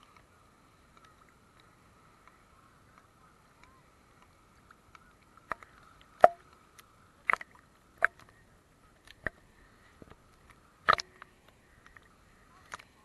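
Small waves slapping against a waterproof camera housing at the water surface: a string of sharp, irregular knocks, starting about five seconds in and coming every second or so, over a faint steady tone.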